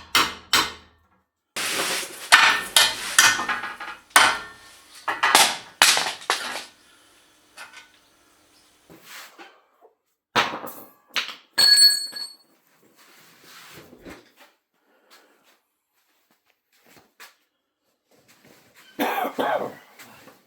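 Hammer blows and clanks on steel chassis rails. A few quick strikes come at the start, then a couple of seconds of dense, loud knocking, then scattered knocks, one of which rings clearly about twelve seconds in.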